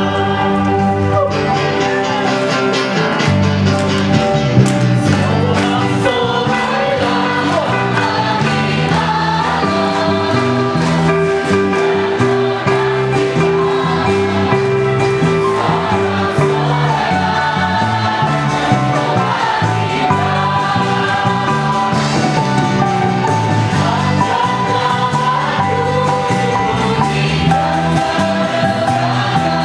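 A worship band and group of singers performing an upbeat praise song, with the voices singing over a steady band accompaniment.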